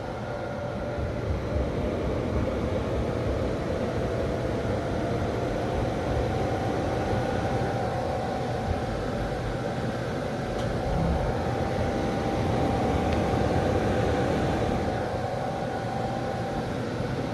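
A 6000XP machine running with a steady high-pitched squeal over a low mechanical rumble. The squeal edges slightly higher a few seconds in and fades out near the end.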